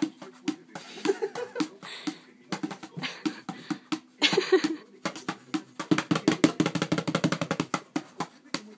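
Small bongo drums slapped by a dog's paws in quick, uneven hits, breaking into a fast flurry of strokes about six seconds in. A short burst of noise comes about four seconds in.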